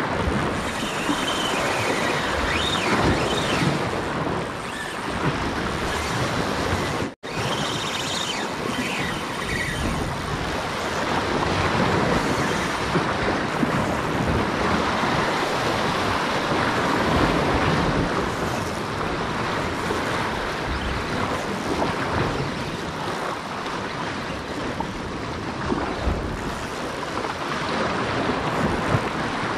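Sea surf washing on a rocky shore, with wind buffeting the microphone; the sound cuts out abruptly for an instant about seven seconds in.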